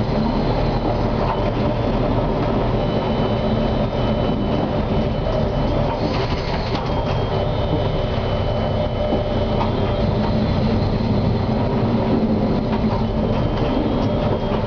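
Konstal 105Na tram running along the track, heard from inside the driver's cab: a steady rumble of wheels and running gear, with faint high whining tones that change pitch about halfway through.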